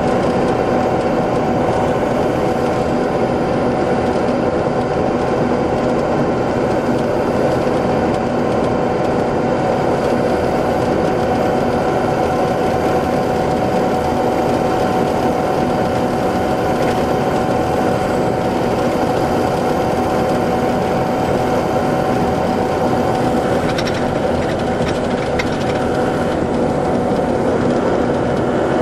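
Detroit Diesel Series 60 EGR diesel engine of an MCI D4500 coach running steadily at constant speed, a loud, even hum with no rise or fall in pitch. A few faint clicks come in near the end.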